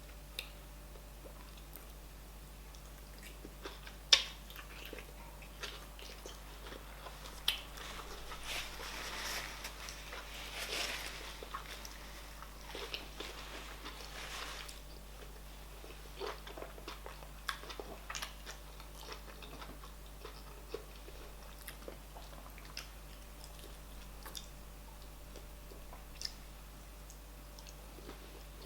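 Close-up chewing and mouth noises of a person eating fufu and oha soup, with scattered sharp clicks and smacks. The loudest is a single sharp click about four seconds in, and the chewing is busiest in the middle.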